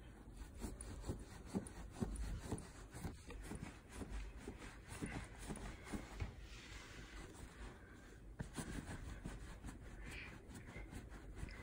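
Soft, irregular rubbing and rustling of a terry towel worked over a cat's wet fur in quick strokes as the cat is towel-dried after its bath.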